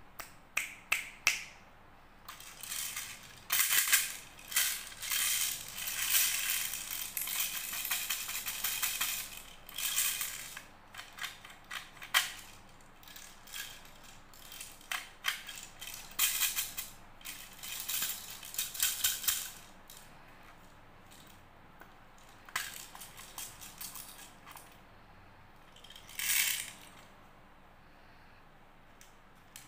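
Hard plastic candy toys handled by hand: clattering and clicking of plastic parts, with small candies rattling inside plastic tubes and containers. Dense and busy for the first twenty seconds or so, then sparser clicks with one more burst near the end.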